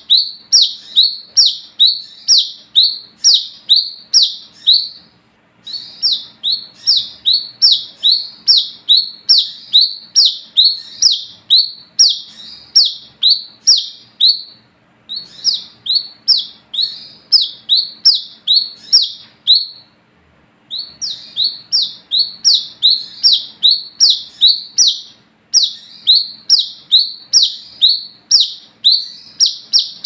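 Brown-throated sunbird (kolibri kelapa) calling in long runs of loud, sharp chirps, about two a second, each note dropping quickly in pitch. The runs break off briefly every few seconds.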